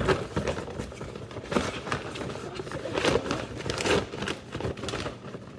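Reusable plastic grocery shopping bag crinkling and rustling as it is shaken out and opened, in several loud bursts.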